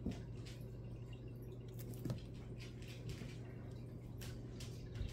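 Faint scattered taps and light rustles of small paper pieces being handled and pressed down while crafting a card, over a steady low hum. The sharpest tap comes about two seconds in.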